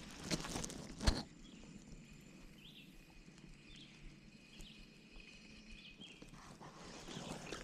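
Quiet outdoor ambience with a few knocks in the first second, then a series of short, faint high chirps from a small animal.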